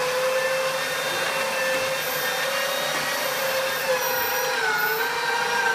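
Geepas electric meat grinder's motor running steadily while grinding walnut kernels. Its pitch sags briefly about four seconds in, as the plunger pushes the walnuts down and loads the motor.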